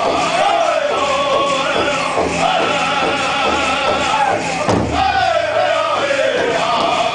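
Powwow drum group singing a southern-style song: voices in falling melodic phrases over a steady, even drumbeat. One heavy thud comes about two-thirds of the way through.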